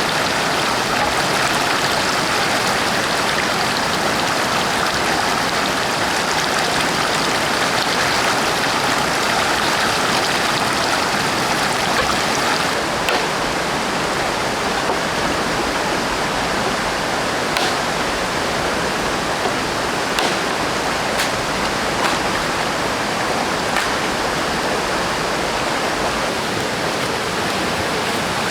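River water rushing steadily, with a few faint light clicks in the second half.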